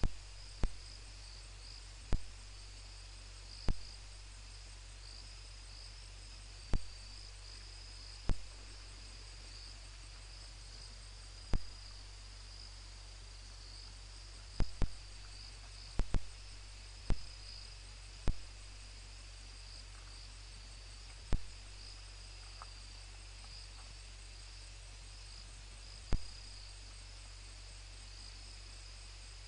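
Night insects chirping in a steady, pulsing high-pitched trill, over a low steady hum. Sharp clicks cut through at irregular intervals, about every one to three seconds, louder than the chirping.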